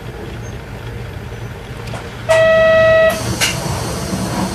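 Isuzu Erga Mio bus's inline-six diesel engine running steadily under way, heard from inside the cabin. About two seconds in, a loud single-pitched tone sounds for most of a second, followed by a sharp click.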